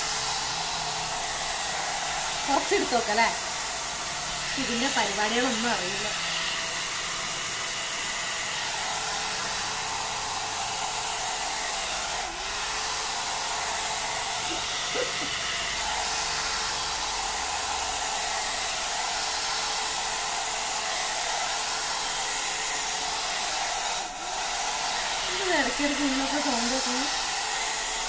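Agaro 1200-watt hot-air volumizer brush blowing steadily, with a faint steady whine under the rush of air. Twice its sound drops out briefly and comes back, which she puts down to the power cord working loose in a badly seated plug. A person's short vocal sounds come a few seconds in and again near the end.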